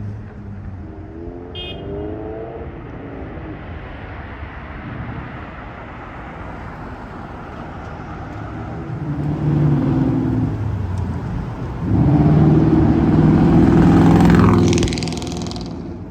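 Street traffic: motor vehicles passing, with one going by close about three-quarters of the way through, its engine and tyres loudest for a few seconds before it fades away.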